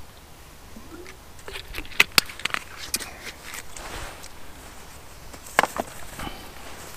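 Close rustling of bedding and fabric as someone shifts in a hammock, with scattered sharp clicks and taps: two loud ones about two seconds in and another later on.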